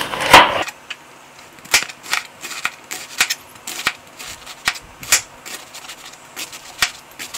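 Chef's knife cutting roughly through half a cabbage onto a cutting board: a run of sharp knife strokes at an uneven pace, about two a second.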